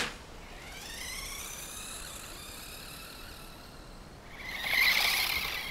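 Radio-controlled toy car's electric motor whining, rising in pitch as it speeds away, then a louder, rougher whir from about four and a half seconds in.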